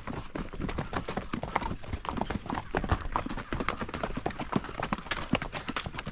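Hooves of several horses clip-clopping on a dirt track, a run of many irregular strikes.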